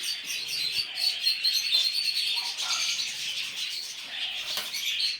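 A flock of small parrots, budgerigars, chattering: many quick overlapping chirps and warbles with no pause.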